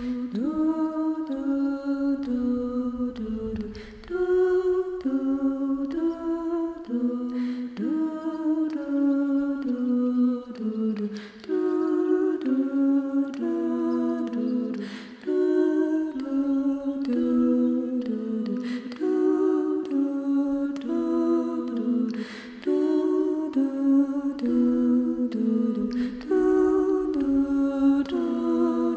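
Wordless a cappella singing in a high voice range, humming a slow melody that steps from note to note, without instruments.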